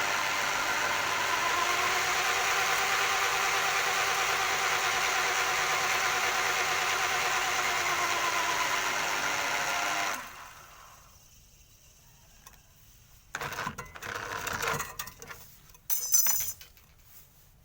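Washing machine motor generator rig running at a steady speed with a whining hum, then cutting off abruptly about ten seconds in. A few short clattering knocks follow near the end.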